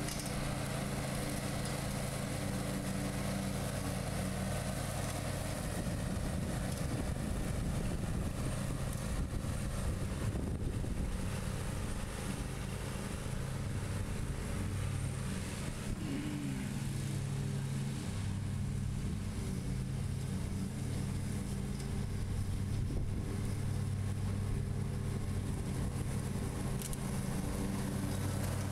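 John Deere Z235 zero-turn mower's 20-horsepower engine running steadily, with its 42-inch deck blades engaged and cutting grass.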